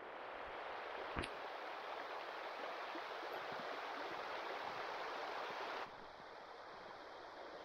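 River water rushing steadily. About six seconds in it drops suddenly to a quieter rush.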